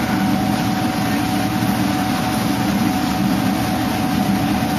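A boat's engine running steadily, with a constant low drone and a thin steady whine above it.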